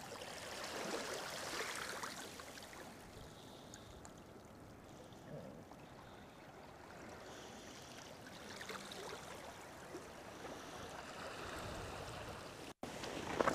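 Faint trickling and lapping of shallow water along a weed-covered rocky shoreline.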